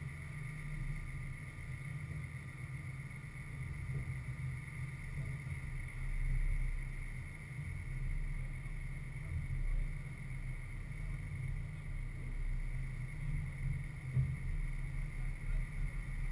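Wind rumbling and buffeting on the microphone, under a steady faint high-pitched hum.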